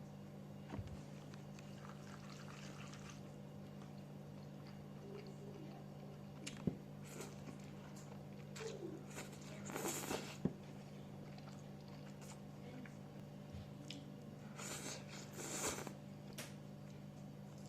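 Close-miked eating sounds: scattered bites, crunches and mouth clicks, with short bursts of chewing about ten seconds in and twice near the end, over a steady low hum.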